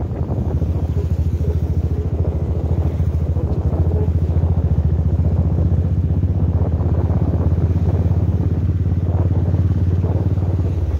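Motorcycle engine running steadily at low road speed, heard from the rider's seat as a low, evenly pulsing exhaust beat.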